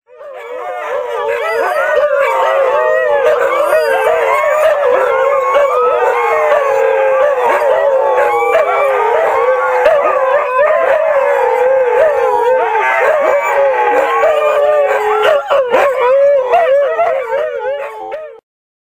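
Six Siberian huskies howling together, many overlapping wavering howls at different pitches. The chorus builds over the first couple of seconds and cuts off suddenly near the end.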